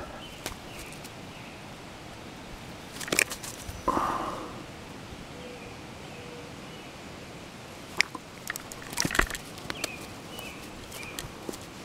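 Handling sounds of a fish being unhooked with forceps: a few short, sharp clicks, with a cluster of sharper knocks about nine seconds in as the fish drops and flops on the grass.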